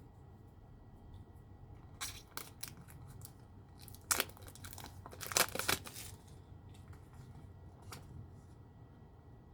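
Packaging being torn and crinkled by hand while opening a nail stamper set, in bursts about two seconds in and again from about four to six seconds.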